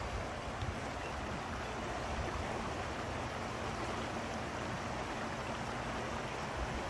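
Water in a stone-lined stream flowing steadily.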